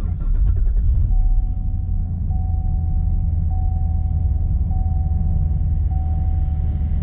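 Chevrolet Corvette C7 Stingray's 6.2-litre V8 starting up, heard from the driver's seat: a louder surge in the first second or so, then settling into a steady idle while cold. Over it, a single-pitched cabin chime repeats about once a second.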